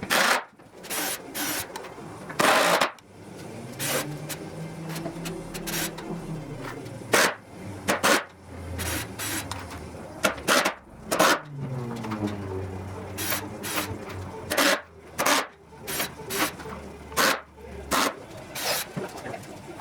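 Workshop work: a string of short knocks, clatters and scrapes. A small motor-driven tool, such as a drill, winds up and back down twice.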